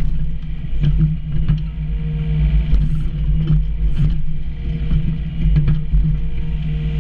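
Komatsu PC28 mini excavator's diesel engine running steadily under digging load, with scattered short knocks as the bucket works the soil.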